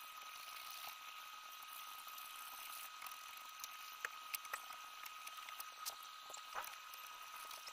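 Faint steady hiss with a thin steady tone under it. From about three seconds in come a few light clicks and taps, as the metal cap gun and a brush are handled.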